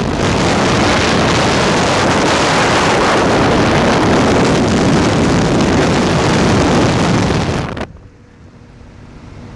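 Heavy wind rushing over the microphone in the open cockpit of a microlight aircraft in flight, burying the engine. It cuts off abruptly near the end, leaving a much quieter engine drone.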